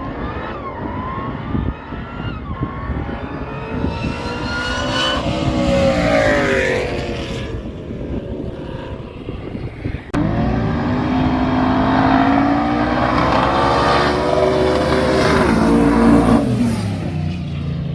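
Drag racing cars' engines revving and accelerating hard, pitch climbing as they pull away, in two separate runs. The second starts suddenly about ten seconds in and cuts off sharply near the end.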